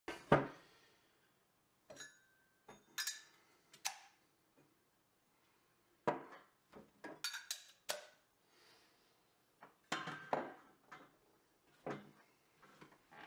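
Copper pipe fittings clinking and knocking on a wooden workbench as they are picked up, set down and handled, a dozen or so irregular knocks, some with a short metallic ring.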